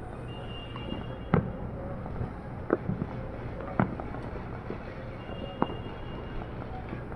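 Fireworks going off: four sharp bangs spread through, with scattered smaller pops between them, over a steady low hum.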